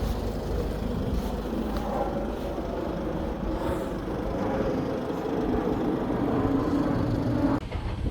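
Rumble of a moving vehicle with a faint whine that rises slightly, cutting off abruptly near the end.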